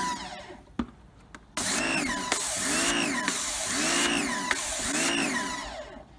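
Titan electric pressure washer: the pump motor stops early on, a click follows, then about a second and a half in the motor starts again with the hiss of the spray, its pitch rising and falling about once a second as it draws detergent from the bucket.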